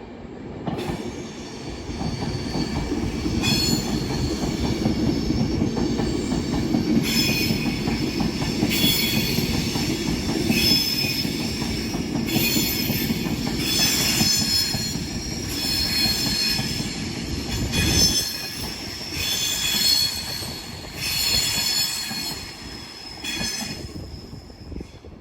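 Pendolino electric train passing at speed, with a steady rumble of wheels on the rails and high-pitched wheel squeal that comes and goes in repeated pulses, fading out near the end.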